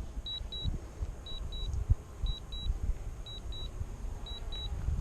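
Drone remote controller sounding its low-battery alarm: pairs of short high beeps about once a second, five pairs in all, over wind rumbling on the microphone.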